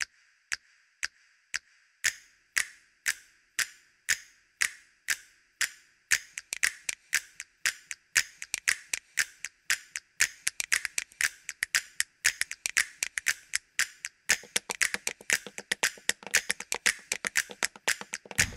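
Soundtrack of ticking, clock-like percussion: sharp clicks about two a second at first, turning into a faster, busier rhythm about six seconds in, with a fuller layer joining near the end.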